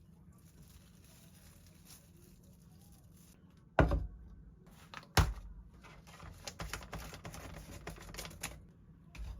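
Kitchen clatter: two sharp knocks about a second and a half apart, then a run of quick light clicks and taps, and one more thump near the end.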